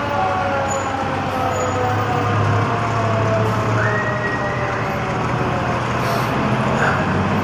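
Fire engine's siren winding down in a slow falling wail over the steady low rumble of the truck's engine. About four seconds in, a second, higher tone rises and then holds.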